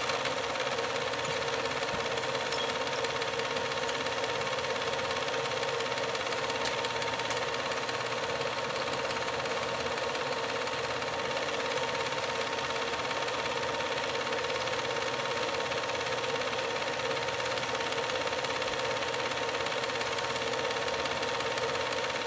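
Film projector running steadily: an even mechanical whir with a constant whine and a faint, rapid ticking of the film transport.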